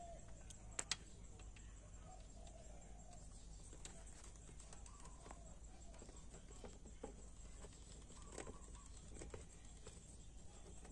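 Quiet background hum with two small sharp clicks about a second in and a few faint ticks after: the engine oil drain bolt of a Honda ADV150 being threaded back in by hand after the oil has drained.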